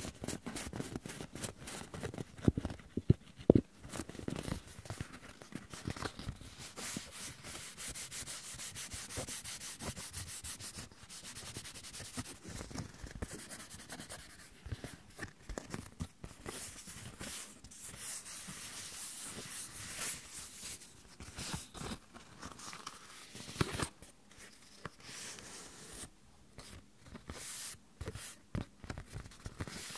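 Hands rubbing and scratching a sheet of paper: a continuous dense rustling, with a few sharper clicks about three seconds in.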